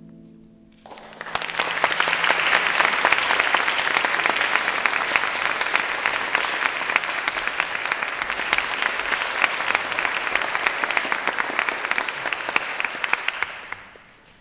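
The last chord of a harp ensemble rings out and dies away. About a second in, an audience breaks into applause, dense and steady, which fades out near the end.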